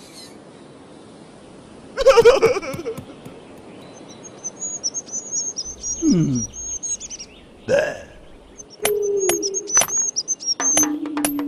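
Animated-cartoon soundtrack: birds chirping, a caveman's short wordless vocal sounds, then sharp taps of a stone hammer on a chisel against a stone block, coming faster near the end.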